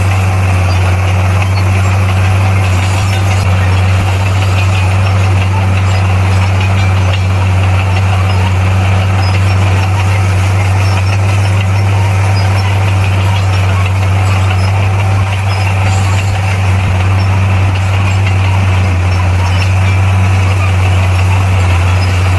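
Bulldozer's diesel engine running steadily at one constant pitch, with a strong low hum that does not rise or fall.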